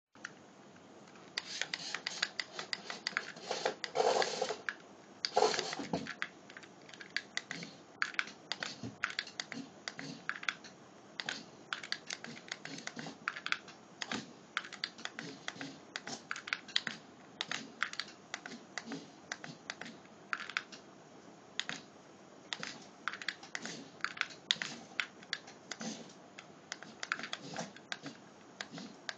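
Rapid, irregular small clicks and ticks, like plastic tapping, going on throughout, with two louder knocks about four and five and a half seconds in.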